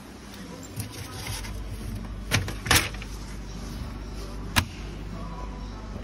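Door of a front-loading washing machine being handled: two sharp knocks about half a second apart, then another knock a couple of seconds later, over a low steady hum.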